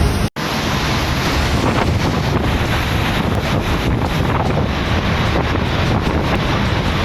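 Typhoon-force wind blasting the microphone in a loud, steady rushing noise, likely mixed with driving rain. It cuts out for an instant shortly after the start, then goes on unchanged.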